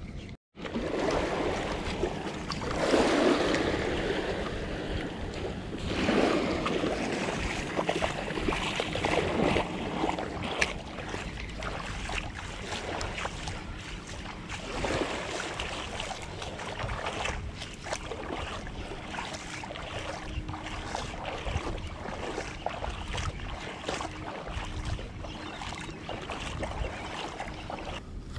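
Wind buffeting the microphone in gusts, strongest a few seconds in, over small waves lapping at the water's edge.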